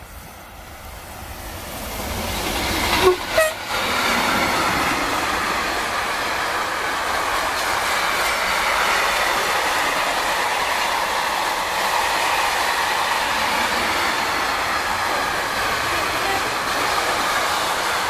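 Freight train of sliding-wall box wagons behind an electric locomotive, approaching and passing close by. Rolling noise builds over the first three seconds, and a short horn note sounds about three seconds in as the locomotive reaches the camera. After that comes the steady rolling of the wagons' wheels on the rails.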